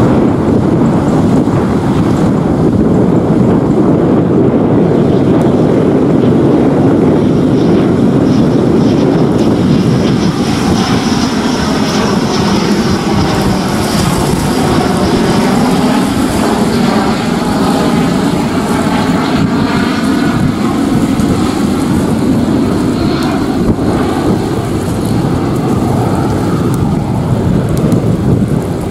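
F-15 Eagle twin-turbofan jet fighter on landing approach with gear down, a loud steady jet rush. A high whine and a swirling, phasing sweep build toward the middle as it passes, then ease off as it flies away.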